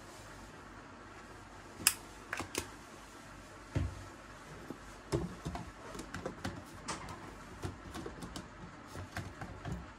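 Handling noises of a plastic personal blender cup and kitchenware: a sharp click about two seconds in, then a string of lighter clicks, taps and rattles as the blade lid is fitted onto the cup.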